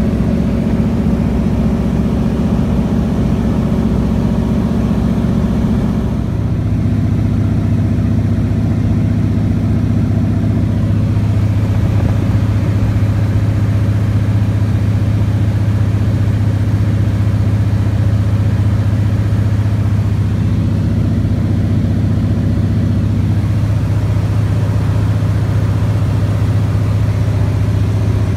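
Small propeller plane's engine and propeller droning steadily inside the cabin in flight, with air noise. The pitch of the drone shifts about six seconds in.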